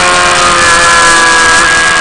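Sport motorcycle engine running hard at track speed, a steady multi-tone engine note that shifts slightly in pitch about half a second in and again around a second and a half, over heavy wind rush on the action-camera microphone.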